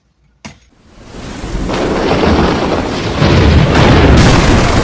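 A single short knock about half a second in, then a loud thunderstorm sound effect, thunder with rain, that swells in over a second or two and grows louder again near the end.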